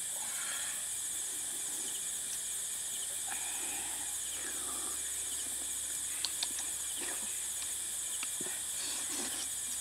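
Steady high-pitched insect chorus, with faint scattered chirps and two short clicks about six seconds in.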